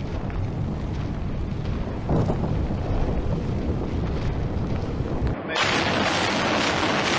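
Demolition implosion: a building collapsing in a continuous low rumble, with a louder surge about two seconds in. About five seconds in the sound cuts abruptly to another demolition recording, a brighter, hissing noise.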